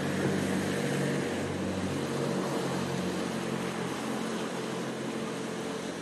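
Sea surf breaking and washing around rocks: a steady rushing noise, with a low hum of held tones underneath.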